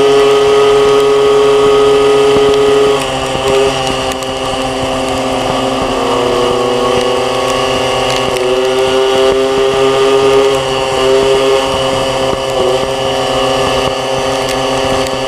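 Small two-stroke 50cc moped engine running at a steady cruising speed, heard close up from the rider's own bike; its note drops slightly about three seconds in as the throttle eases, then holds steady.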